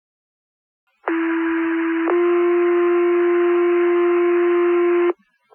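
Two-tone sequential paging tones over a fire dispatch radio channel, the signal that sets off the volunteer firefighters' pagers. A low steady tone sounds for about a second, then steps to a slightly higher tone held for about three seconds, and cuts off abruptly.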